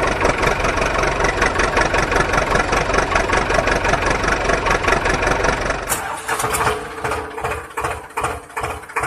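An engine sound, cutting in abruptly and running with a fast, dense rattle; about six seconds in it changes to a slower, even chugging of about two to three beats a second over a steady hum.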